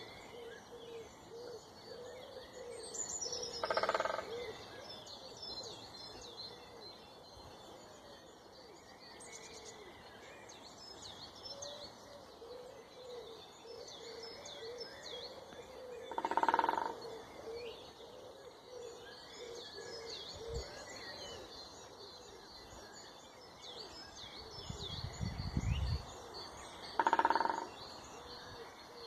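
A woodpecker drumming on wood in three short rolls of about a second each, roughly twelve seconds apart, over continual chirping and singing of other birds.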